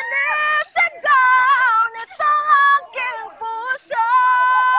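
High-pitched solo singing of a love ballad: several short sung phrases, then a long note held with vibrato from about four seconds in.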